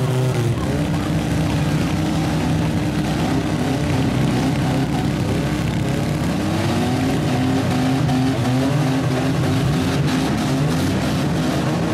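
Engines of several demolition-derby pickup trucks, vans and SUVs running and revving together, their pitches rising and falling over one another as they drive and ram.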